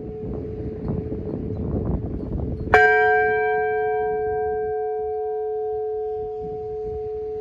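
Large bronze church bell struck once a little under three seconds in, with a bright clang that settles into a long, slowly fading ringing hum. Before the strike, the hum of the previous stroke is still sounding.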